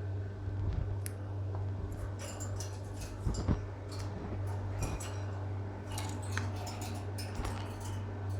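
Lovebirds in a cage: irregular short clicks and ticks, with a few brief high chirps, over a steady low hum.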